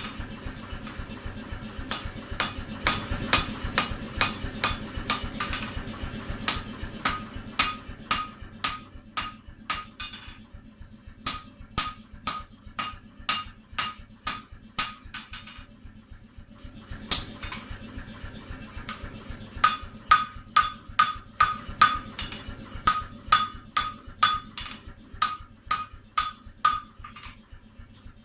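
Straight peen hammer striking hot axe steel on an anvil, about three blows a second, each with a clear metallic ring. The blows ease off briefly twice. A faint, steady low hum sits underneath.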